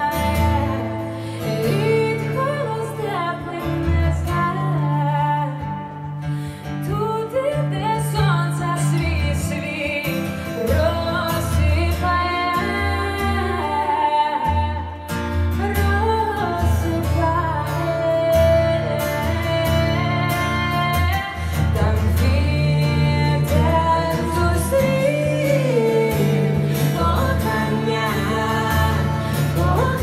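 Live song: a strummed acoustic guitar under a woman's lead vocal, with deep bass notes underneath.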